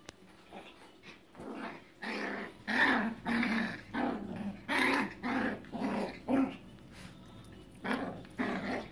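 Small dogs, a Yorkshire terrier and a puppy, growling in a string of short bursts as they play-fight. The growls start about a second and a half in. They are play growls, not a real fight.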